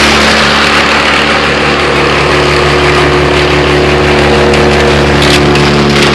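Loud wood chipper engine running steadily at working speed as evergreen branches are fed into its infeed chute, with a few sharp cracks of brush going through the chipper about four and a half to six seconds in.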